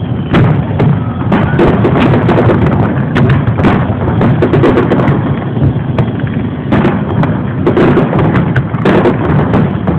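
Aerial firework shells bursting in quick succession: a dense, unbroken run of bangs and crackles.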